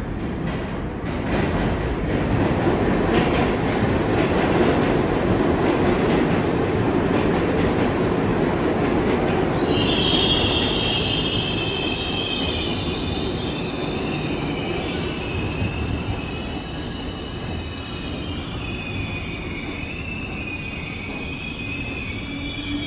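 New York City subway train rumbling along the track, growing louder over the first few seconds. About ten seconds in, high metallic squeals of several shifting pitches begin and carry on as the rumble eases.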